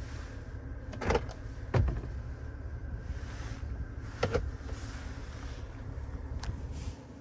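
Steady low hum inside a car cabin with a few sharp knocks and clicks from hands handling the interior trim. The loudest two come about one and two seconds in, another a little past four seconds, and a faint click near the end. The hum drops away just before the end.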